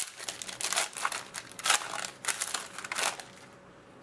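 Crinkling and crumpling of a foil trading-card pack wrapper being handled, a run of uneven rustles and crackles that stops about three and a half seconds in.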